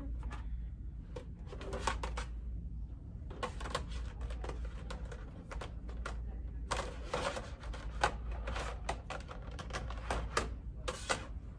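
Stacked matte black plates clacking and clinking against each other in quick runs of knocks as they are handled and pulled from a low shelf.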